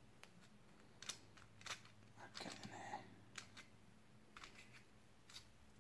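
Faint, scattered light clicks of a plain nut being fitted and turned onto a lead screw by hand, metal tapping on metal.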